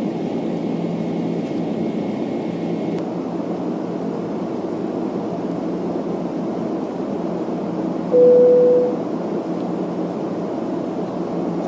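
Steady roar of engine and air noise inside a Boeing 767-300's cabin during the climb. About eight seconds in, a single cabin chime tone, the loudest sound, rings for under a second and fades.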